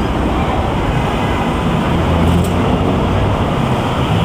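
Road traffic: a steady rumble of passing vehicles with a low engine hum.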